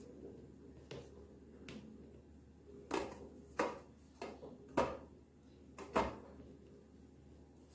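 A handful of light clicks and knocks, about six, mostly bunched in the middle, from a hand moving pieces of burfi about on a steel plate.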